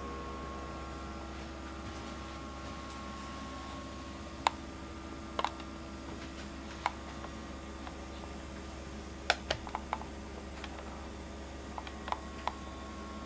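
Steady low hum with a few faint steady tones, with scattered short sharp clicks and knocks from a handheld camera and the fittings it brushes past.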